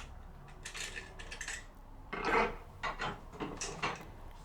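Small metal clicks and clinks from a lever-tumbler lock and its master-key picking tool being handled and worked: a scatter of separate light clicks, with one louder, longer clack about two seconds in.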